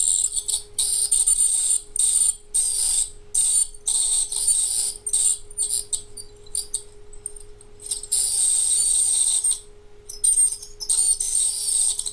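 Handheld electric dental calculus remover (at-home scaler) giving a high-pitched buzz in short on-off bursts, with one longer run about two-thirds through, as its tip is pressed against tartar on the teeth at the middle power setting. It vibrates only while touching something hard, so it cuts in and out as it breaks up the tartar.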